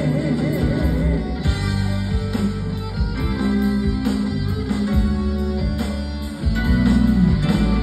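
Live band playing an instrumental break between verses of a Vietnamese Tết spring song: drum kit keeping a steady beat under bass and sustained melody notes, dipping briefly about six seconds in before coming back fuller.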